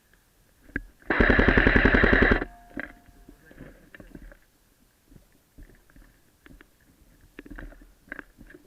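Airsoft gun firing one full-auto burst of about a second and a half, starting about a second in, with a rapid even rattle of shots. Scattered faint clicks and knocks follow.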